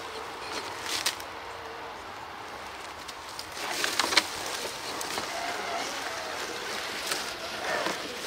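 1/10-scale RC crawler trucks working over snowy rocks: a faint electric motor whine for the first couple of seconds, then a few sharp knocks and crunches of tires and chassis on rock and snow, the loudest about four seconds in.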